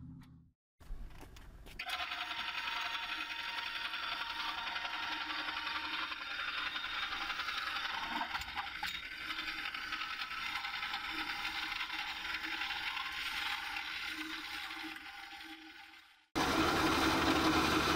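Electric hitch-mounted boat-trailer winch (Winch Wizzard) running steadily, its motor and gears whirring as it pays out cable to let the loaded boat trailer down the slipway. The sound cuts out briefly near the start and again near the end, then comes back louder.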